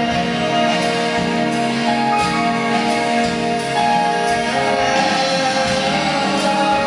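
Rock band playing live: an instrumental stretch of a song, with sustained chords and no singing.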